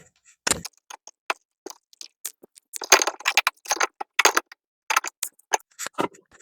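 Irregular clicks and taps of a grounding screw being fitted and driven into an electrical box, with small metal parts knocking.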